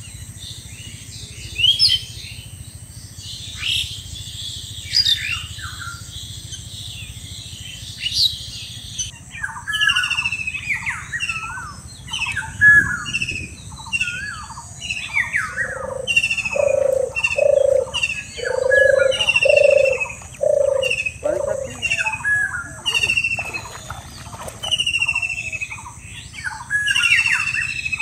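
Several birds chirping and whistling, many short overlapping calls, with a run of about seven low, evenly spaced hooting notes from one bird partway through.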